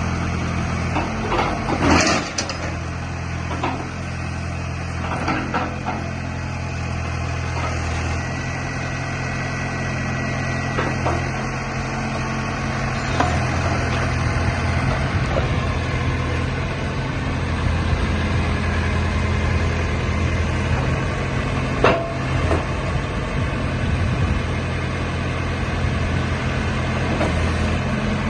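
JCB 3CX backhoe loader's diesel engine running steadily, with a few sharp knocks and clanks, the loudest about two seconds in and another late on.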